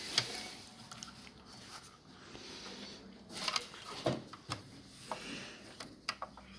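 Scattered small clicks, taps and light rustling of hands handling a mini sewing machine's plastic parts as the bobbin thread is fitted, with a few sharper clicks in the middle.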